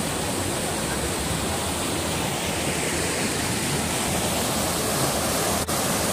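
Steady rush of a small waterfall cascading over rock into a plunge pool, cut short by a brief dropout near the end.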